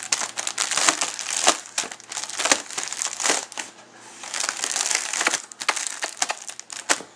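Plastic bubble wrap being crushed and crumpled: crackling with a string of sharp pops.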